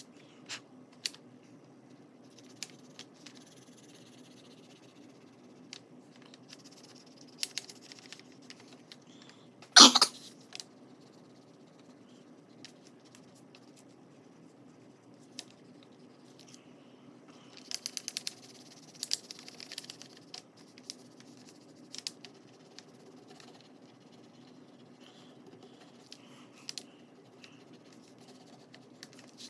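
Faint scratching of a metallic coloured pencil drawing on paint-covered paper, with scattered light taps and clicks, over a low steady hum. One loud, short sound about ten seconds in stands out above everything else.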